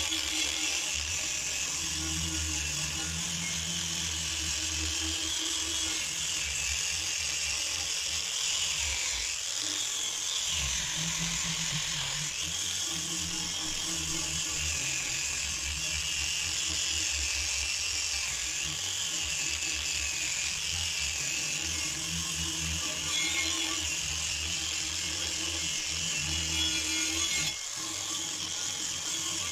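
Angle grinder running with an abrasive wheel against a steel shovel blade, its motor whine wavering and dipping in pitch as it is pressed harder into the metal.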